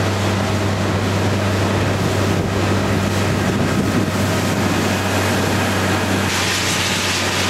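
Prototype Honda BF90 four-stroke outboard running steadily with the boat under way, a constant low hum under the rush of wind and water. The wind and water rush gets louder about six seconds in.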